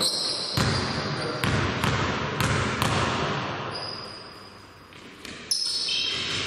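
A basketball dribbled on a hard indoor court, six bounces in about three seconds with a short echo after each, and sneakers squeaking on the floor. After a short lull another thud and more squeaks come near the end.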